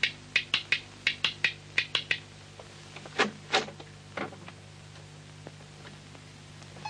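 A quick, uneven run of sharp clicks, about four or five a second, stopping about two seconds in, then three short sounds sliding downward in pitch, over a steady low hum.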